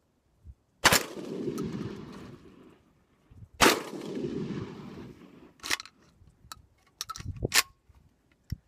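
Two shots from a Catamount Fury II AK-style 12-gauge semi-automatic shotgun firing birdshot, a few seconds apart, each echoing off for over a second. They are followed by several sharp metallic clacks of the action being worked by hand, typical of clearing the failures to extract that the gun has on its low gas setting.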